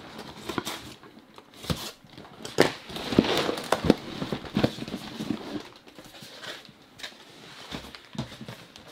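Cardboard box and packaging being opened and handled by hand, with scattered knocks and stretches of crinkling plastic bags of LEGO pieces.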